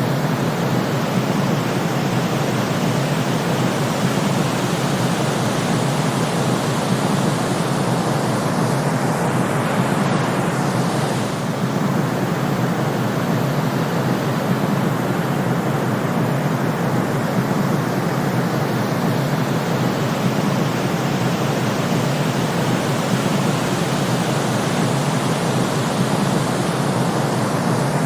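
Steady white-noise sleep track: an unchanging rushing hiss, fuller in the low-mid range with the highs rolled off, with no breaks or rhythm.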